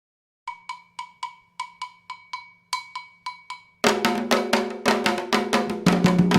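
An agogô iron bell plays the rhythm alone, struck in quick pairs of ringing strokes. About four seconds in, the drums and the rest of the Candomblé percussion come in together.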